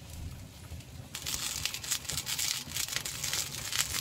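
Clay pot of rice noodles in broth boiling hard on the stove, its chili-oil-topped surface sizzling and crackling with dense fine pops. The crackle starts abruptly about a second in, after a quieter low hum.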